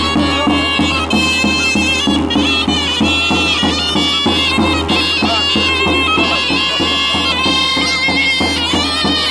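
Two zurle (folk shawms) playing a loud, reedy, piercing folk tune together over a large double-headed drum (tapan) beaten with a mallet in a steady, fast beat.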